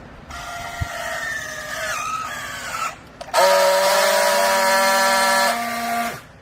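Clothes rag baler's hydraulic power unit whining with a steady pitch in two stretches: a fainter, slightly wavering stretch of about two and a half seconds, then after a short break a much louder, steady stretch of nearly three seconds that cuts off abruptly.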